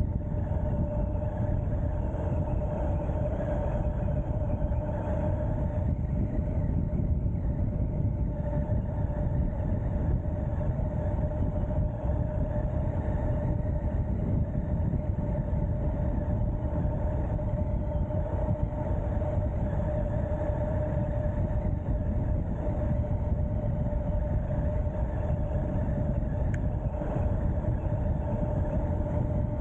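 Ariel Rider X-Class 52V electric bike cruising at steady speed: wind rushing over the camera microphone and tyre noise make a constant rumble, with a steady electric motor whine over it.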